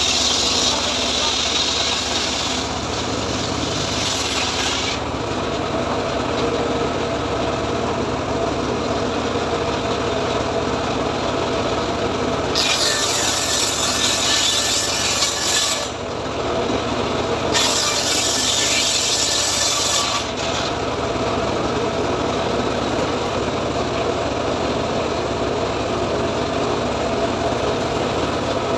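Homemade circular saw bench running steadily and ripping teak wood, the harsh hiss of the blade cutting rising three times: for the first few seconds, about halfway through, and again shortly after, dropping back to the running machine in between.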